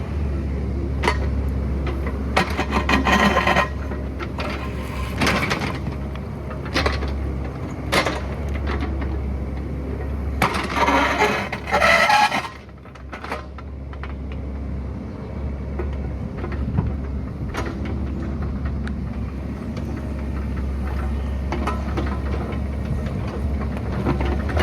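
Excavator running steadily while it works, with repeated sharp knocks and clanks and two longer scraping bursts, about three seconds in and about eleven seconds in.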